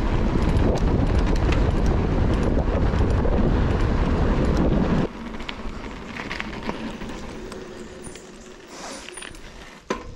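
Wind buffeting an action camera's microphone on a moving mountain bike, a loud low rumble; about five seconds in it cuts to much quieter rolling noise with scattered small clicks and rattles, and a sharp knock near the end.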